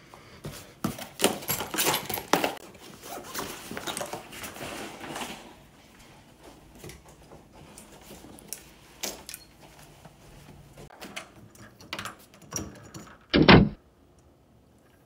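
Handheld-camera handling noise and clothing rustle, with many small clicks and knocks in the first five seconds, then sparser clicks as he moves toward the door. A single loud, short thump comes about 13 seconds in.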